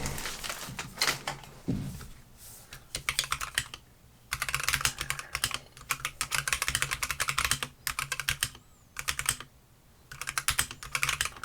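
Fast typing on an Akko ACR87 mechanical keyboard with Akko Jelly switches in a transparent acrylic case: quick runs of key clicks, breaking off briefly about four, eight and ten seconds in.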